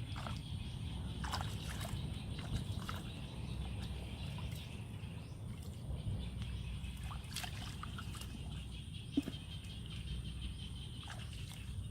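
Shallow water sloshing and splashing in short irregular bursts, with a single sharp knock about nine seconds in.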